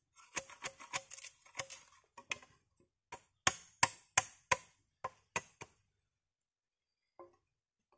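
A blade chopping and notching into bamboo. Quick, light knocks come through the first two seconds, then about seven louder, sharper strikes between three and six seconds in, and a single faint knock near the end.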